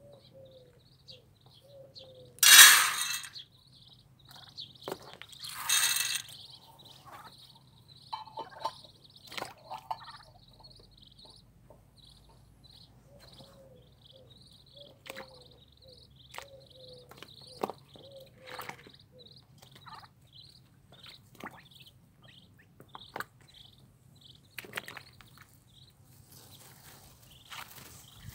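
Feed pellets poured into a steel bowl in two loud pours about three seconds apart, with scattered small clicks after. Madagascar teal ducklings peep throughout in short high calls that repeat about once or twice a second.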